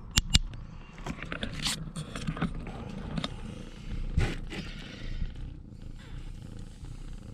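Mother cat purring steadily close up while her kittens nurse, with two sharp clicks just after the start and some rustling.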